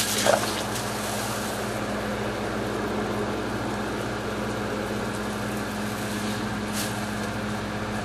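Steady storm noise of rain and wind with a low steady hum underneath. A brief louder burst comes right at the start, as water runs down the face.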